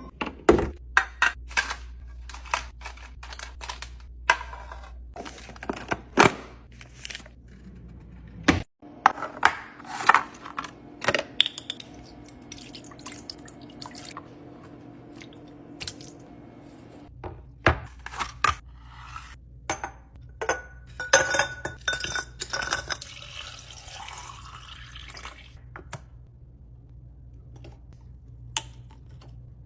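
Containers and household items being handled and set down during restocking and organizing: a steady run of clicks, taps and clatters, with a denser rustling clatter about three quarters of the way through.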